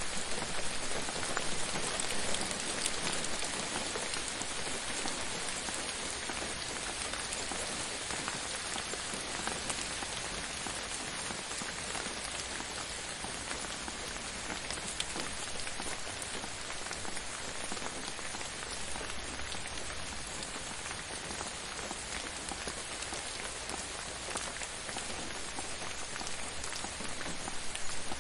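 Steady gentle rain falling on a surface, a dense patter of drops, even throughout.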